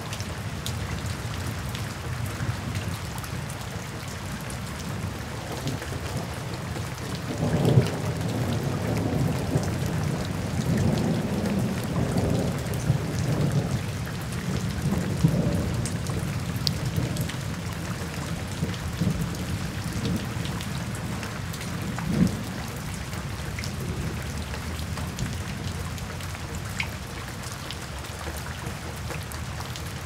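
Steady rain splashing on a wet paved surface. Low thunder rolls in about a quarter of the way through and rumbles on for several seconds, and a shorter rumble comes about three-quarters through.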